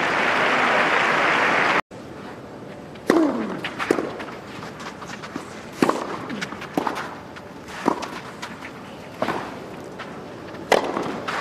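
Crowd applause for the first two seconds, cut off abruptly, then a tennis rally on a clay court: sharp racket strikes on the ball about every second or so, with a few fainter thuds in between.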